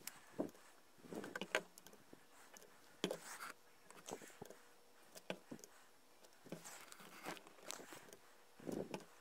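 Faint, scattered clicks and light plastic knocks, about one a second, as a LEGO Mindstorms EV3 robot is shifted about on the mat and its brick's buttons are pressed during colour-sensor calibration.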